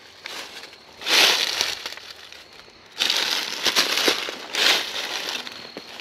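Footsteps crunching through dry fallen leaves: one step about a second in, then a run of steps from about three seconds on.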